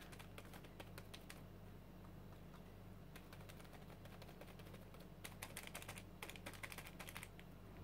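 Faint, rapid soft tapping of a foam sponge dabbing acrylic paint through a plastic stencil onto a sketchbook page. The taps come in quick clusters at the start and again past the middle.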